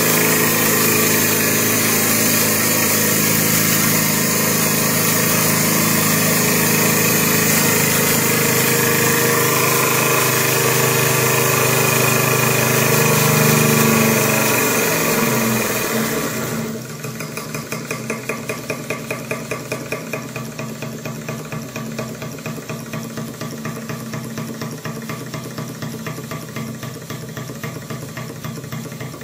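Model two-cylinder double-acting marine steam engine running fast with a steady hiss and whine. About fifteen seconds in its pitch slides down as it slows, and it drops to a quieter, even run of rapid exhaust beats.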